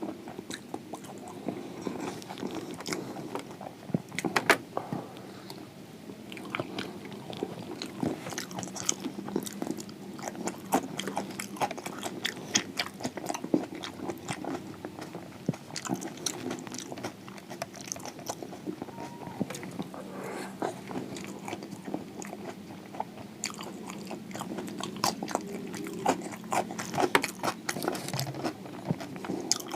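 A person chewing and biting crispy samosa close to the microphone: irregular wet chewing with sharp crunches of the fried pastry, over a faint steady hum.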